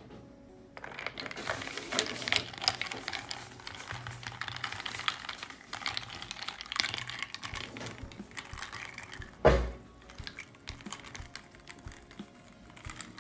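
A wooden spoon stirring ice cubes in a glass of iced soda: rapid clinking and rattling of ice against the glass, with one louder knock about two thirds of the way through.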